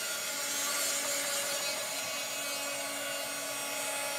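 Heat gun blowing steadily: an even rush of air with a constant motor hum underneath.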